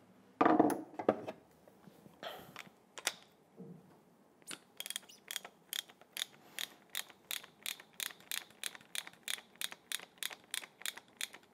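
Ratchet wrench with a 21 mm socket clicking steadily, about three clicks a second, as the top cap of a Marzocchi MX Comp suspension fork is unscrewed. A few louder handling knocks come in the first second or so.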